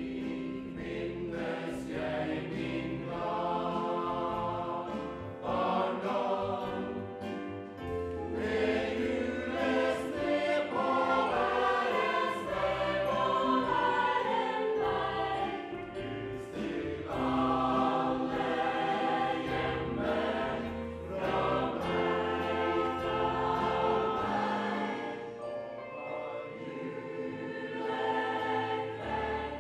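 Mixed choir singing a slow Christmas song in harmony: held chords that swell and ease with each phrase, over sustained low notes.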